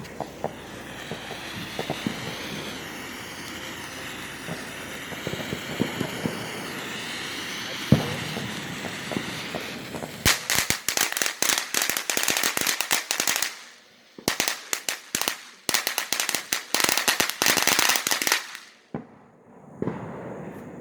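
A large ground firework hisses steadily for about ten seconds, with one sharp pop partway through. It then breaks into two long runs of rapid crackling with a brief gap between them, and stops a couple of seconds before the end.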